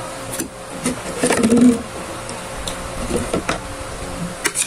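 Spoon and cutlery clicking and scraping on plates while eating, a scatter of small sharp clicks, with a brief murmured voice about a second in.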